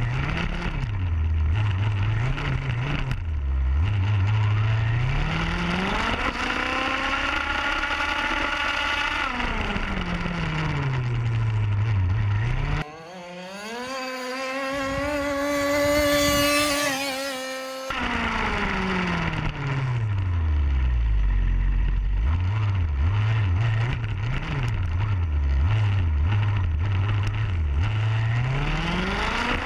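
The Zenoah G32 32cc two-stroke engine of an HPI Baja RC car with a resonance pipe, revving up and dropping back repeatedly as the car accelerates and slows. In the middle it holds a high, slowly rising note at full throttle for about five seconds, and near the end it is blipped in quick, short revs.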